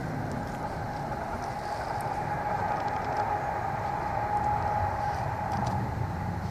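Steady mechanical rumble with a humming tone, like an engine running. Beneath it is faint scratching from a Bedlington terrier pup digging in soil.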